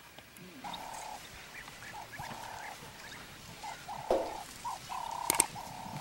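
Background animal calls: a string of short, steady notes, all at one middle pitch, repeating irregularly. A brief rustling burst comes about four seconds in, and a couple of sharp clicks near the end.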